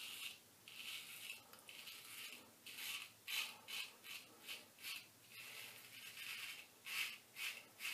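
A 1907 Ever Ready Lather Catcher single-edge safety razor scraping through lathered stubble in about fifteen short strokes, each a faint crisp rasp: the audible feedback of the blade cutting the whiskers.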